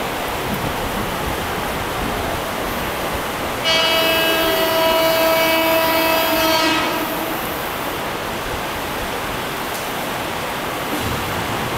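Seibu Railway electric commuter train pulling in alongside the platform with a steady rolling noise. In the middle it gives a loud, held, horn-like tone with many overtones for about three seconds, which starts suddenly.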